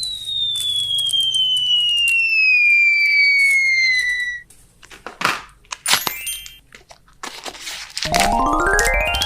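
Cartoon-style sound effects: a long descending whistle over about four seconds, a quick whoosh, a short fluttering burst, then a buzzy rising glide near the end.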